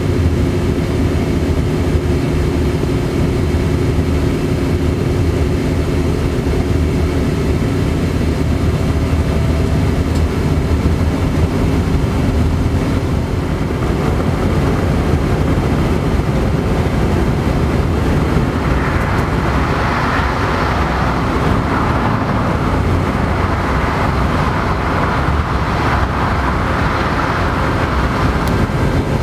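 Steady running noise of a train heard from the driver's cab at speed in a tunnel: a continuous low rumble with a steady hum. A hiss grows louder through the second half.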